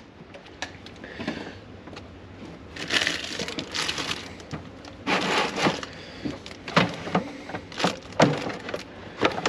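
Irregular crunching and crackling with a few sharp knocks, from bok choy being handled and prepared.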